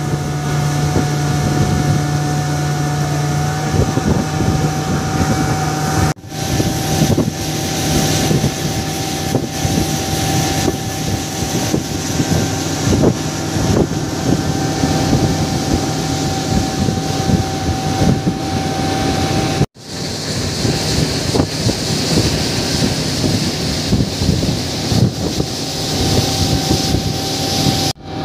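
A boat's engine running steadily under way, with wind buffeting the microphone. The sound breaks off for a moment twice, at about six and twenty seconds.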